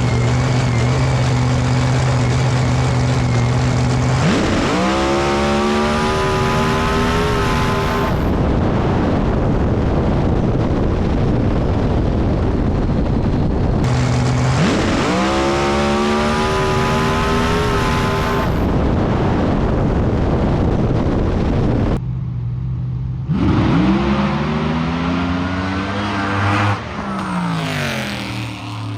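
A screw-supercharged Hemi drag car's engine held at a steady rev, then climbing in pitch as it launches and pulls down the track. This is heard three times in separate cuts, with the climbs starting about 4, 14 and 23 seconds in. The last run fades out near the end.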